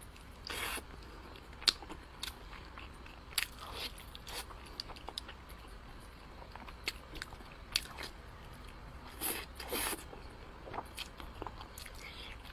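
Close-miked mouth sounds of chewing soft, sticky braised pork: many short wet clicks and lip smacks, with a few longer, noisier smacks, one just after the start and two close together about three-quarters through.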